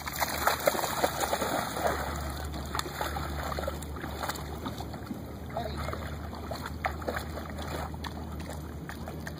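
Dogs wading and splashing in shallow lake water: sharp splashes for the first couple of seconds, then lighter, scattered sloshing as they move about. A steady low rumble sits underneath.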